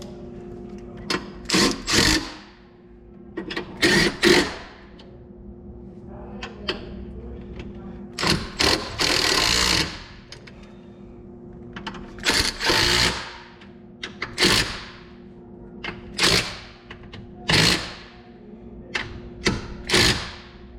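Ratchet wrench clicking in short strokes as the battery hold-down bracket bolts are tightened down, about a dozen bursts one to two seconds apart, with a longer run of clicks about nine seconds in.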